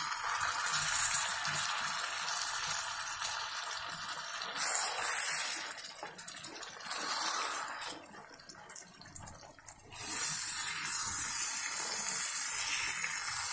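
Okra and potato curry in tomato gravy sizzling in a metal pan while it is gently stirred with a wooden spatula. The hiss drops away briefly about six seconds in and again around eight to ten seconds, then runs steady.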